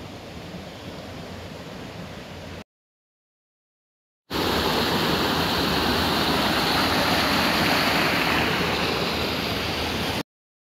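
Fast-flowing shallow stream rushing over stones and a small step, a loud steady rush that starts suddenly about four seconds in and cuts off abruptly near the end. Before it there is a quieter steady hiss, then a gap of dead silence.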